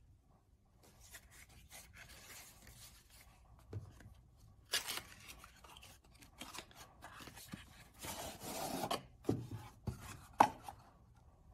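Cardboard packaging being handled: rubbing and scraping as an inner box slides out of its cardboard sleeve, with several sharp taps and knocks, the loudest about ten seconds in.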